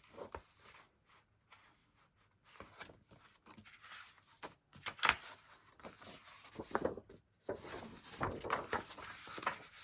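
Paper sheets rustling and sliding as they are handled and laid in place, with a few soft taps, busier in the second half.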